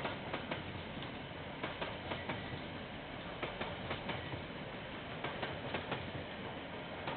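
KiwiRail freight wagons rolling past over a bridge: a steady rolling noise with sharp wheel clicks over the rail joints, some coming in quick pairs.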